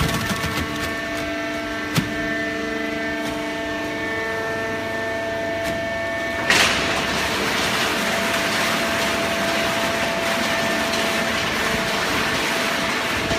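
Hydraulic horizontal cardboard baler running, with a steady machine hum and one sharp knock about two seconds in. About halfway through there is a sudden loud burst, and the hum turns into a steady rushing noise.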